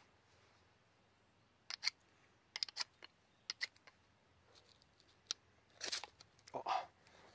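Knife spine scraped along a ferrocerium fire-steel rod over wood shavings: a series of short, sharp scrapes, several in quick pairs, then two longer scrapes near the end.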